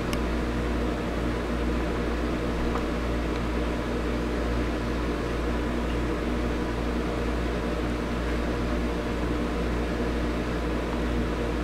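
Steady low hum with a hiss, unchanging throughout, like a fan or household appliance running.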